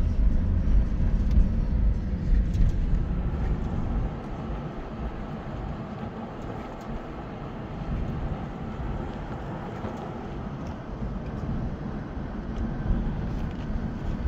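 Car driving, with a steady rumble of tyre and wind noise heard from inside the car. The deep rumble eases about four seconds in and turns to a softer, even road noise.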